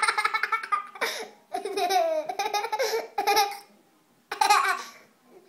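A young child laughing in several breathy, rapidly pulsing bursts with short pauses between them.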